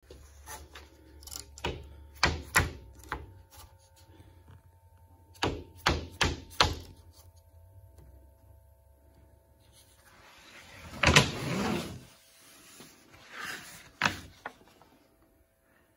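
A series of sharp knocks and clunks in small groups, then a longer scraping rustle and a few last knocks near the end.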